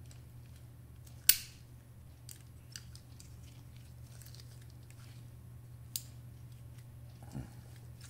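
A new metal centrifuge door-lock assembly is worked with a screwdriver: one sharp click about a second in, then a few fainter clicks, over a steady low hum. The new lock is stiff and does not latch easily.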